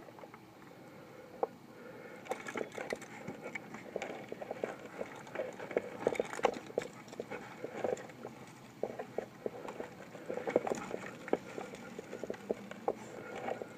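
Irregular knocks, scuffs and rubbing as a tree climber works his way up the trunk on a rope, hands and body against the bark.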